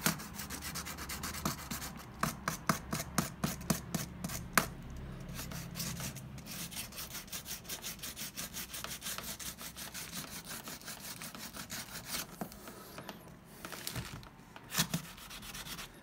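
240-grit sandpaper wrapped around a flat backing, rubbed back and forth along the edge of a leather briefcase: a quick, even rasping of about four strokes a second, sanding the edge smooth for edge paint. It eases off near the end, with a few last strokes.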